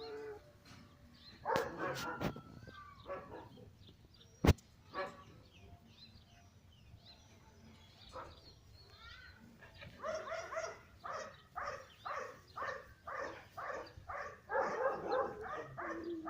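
Dog barking and yipping, with a fast run of repeated barks, about two a second, over the last six seconds. A single sharp knock sounds about four and a half seconds in.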